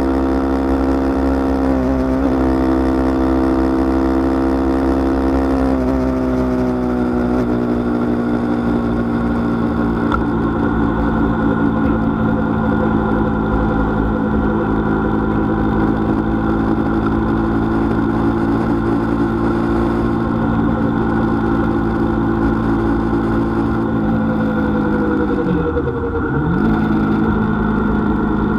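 Vehicle engine heard from on board while cruising at a steady speed, its note easing down slightly about six seconds in. Near the end the pitch dips sharply and comes straight back up.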